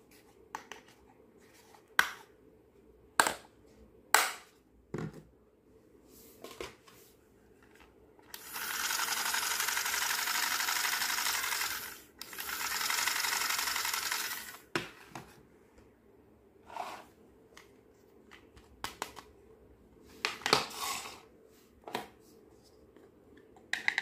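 Hard plastic toy pieces clicking and clacking as they are handled and set down, with a pink toy sewing machine in the middle running with a steady mechanical whirr for about four seconds, stopping for a moment, and running again for about two seconds.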